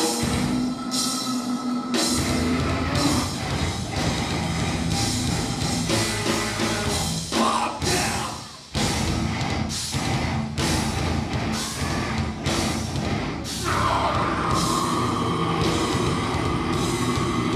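A heavy metal band playing live and loud: distorted guitars, bass and pounding drums, with vocals. The music cuts out briefly about eight and a half seconds in, then comes back in.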